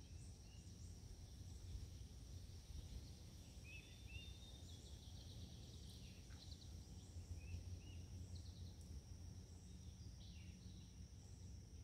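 Faint outdoor ambience: a steady high insect drone with a few soft bird chirps scattered through it, over a low hum.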